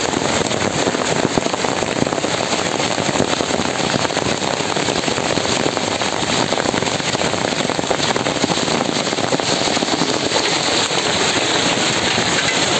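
Heavy hail pelting down on a street and parked vehicles: a steady, dense clatter of countless small impacts, even throughout.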